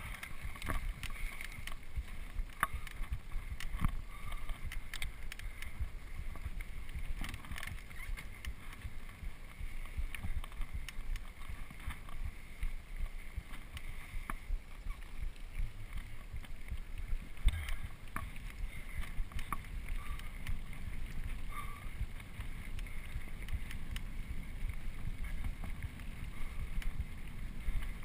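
Mountain bike ridden fast over a dirt single-track trail: a steady low rumble of wind buffeting the camera microphone and tyres on the dirt, with frequent clicks and rattles from the bike jolting over bumps, the sharpest a bit past halfway.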